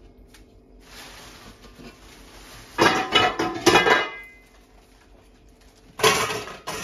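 Metal pots and bowls clattering and clanking together at a kitchen sink, in two bursts of knocks with short metallic ringing, the second starting near the end.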